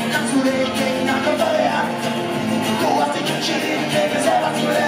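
Live rock band music: acoustic and electric guitars playing together, with a man singing over them.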